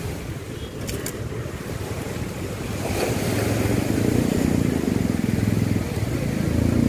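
Low rumble of surf and wind buffeting the microphone, growing louder about three seconds in.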